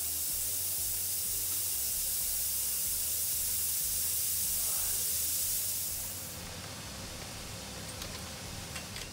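Stovetop pressure cooker letting off steam at full pressure, a steady high hiss that dies away about six seconds in. A few light clicks near the end as the lid is handled.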